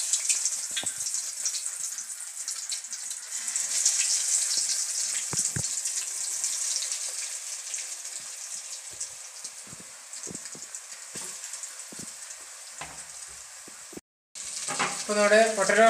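Breadcrumb-coated potato rolls deep-frying in hot oil in an aluminium kadai: a steady sizzling hiss with small pops. It is loudest a few seconds in, then slowly dies down and breaks off near the end.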